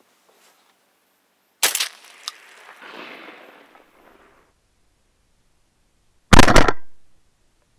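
Two shotgun shots: a sharp report about a second and a half in, with a faint rustle after it, then a second, much louder shot about six seconds in.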